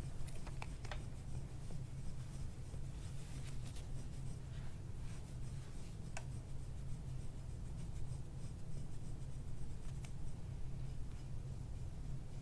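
Hands pressing and rubbing over a person's upper back and shoulder muscles to work out knots: a soft, steady rubbing with a few faint clicks.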